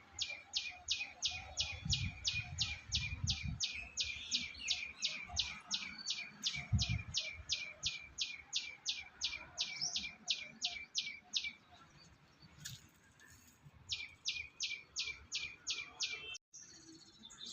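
A bird calling a long, rapid series of sharp, high chirps, each dropping in pitch, about four a second. The chirps break off for a couple of seconds, then resume briefly.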